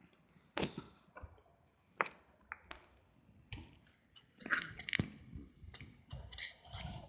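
Scattered clicks, taps and light metallic rattles, irregularly spaced and busier near the end, from a terrier on a metal chain lead moving about on paving slabs.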